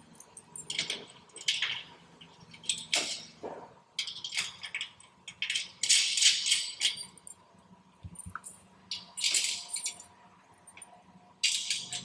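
Small steel nuts and lock washers clinking and rattling as they are threaded by hand onto bracket bolts, in short bursts of metallic jingling every second or two.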